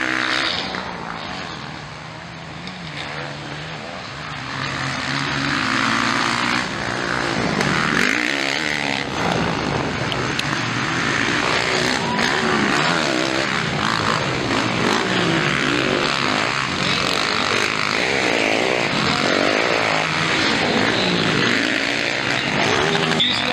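Motocross bikes' engines revving hard and easing off as they race around the track, the pitch climbing and dropping over and over as riders open and close the throttle. Somewhat quieter in the first few seconds, then louder and busier from a few seconds in, with several engines overlapping.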